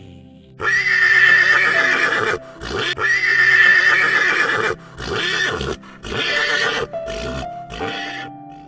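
A horse neighing again and again: a long, loud whinny followed by several shorter ones.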